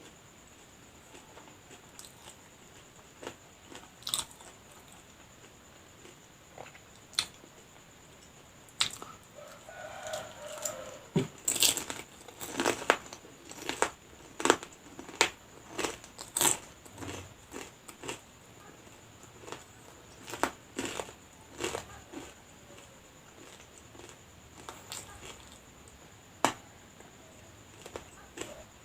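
Close-miked mouth sounds of eating homemade lumpia spring rolls filled with egg and sausage: crisp bites and wet chewing clicks. They come sparsely at first, grow busiest in the middle, then thin out again.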